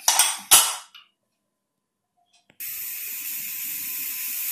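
Two sharp metal clanks as the aluminium pressure cooker's lid is locked shut by its handle. After a short silence, steady hissing starts as steam escapes at the vent under the whistle weight and slowly grows louder as pressure builds toward the whistle.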